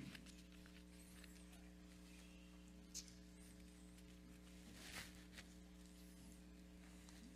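Near silence: room tone with a steady electrical mains hum, and two faint brief noises about three and five seconds in.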